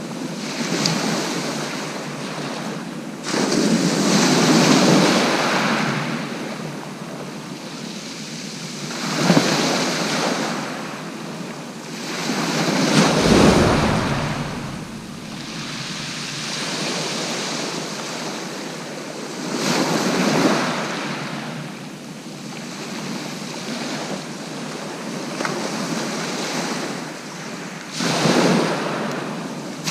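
Sea waves breaking and washing up the beach, a surge every five to eight seconds over a steady wash of surf.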